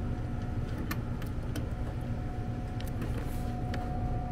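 A hex key clicking sharply several times as it works in a refrigerant service valve's stripped hex socket, over a steady low motor hum with a thin steady whine.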